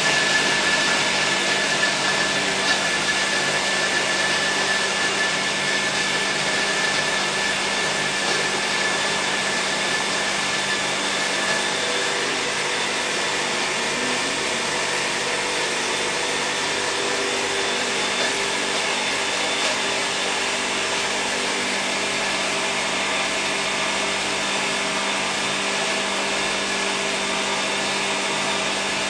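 Powerful blender running continuously, grinding sunflower seeds with lemon, salt and pepper into a creamy paste. It is a steady whirr whose tone shifts a little about halfway through as the mixture turns smooth.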